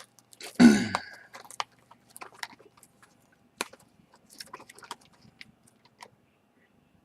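A brief vocal sound falling in pitch, like a throat-clear, about half a second in. Then scattered light clicks and crinkles of a factory-sealed trading-card box being handled.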